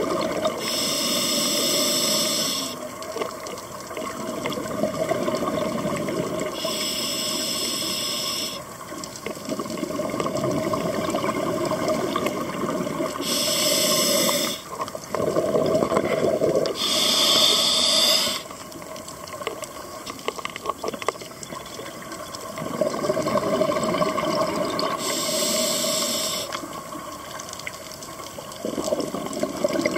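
A scuba diver breathing through a regulator underwater: a short hiss of each inhalation every few seconds, each followed by a longer rush of bubbling exhaled bubbles.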